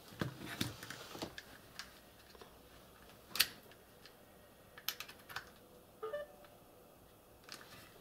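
Hands handling a plastic USB hub and a USB cable plug on a work mat: a scattered series of light clicks and knocks, the sharpest a little after three seconds in.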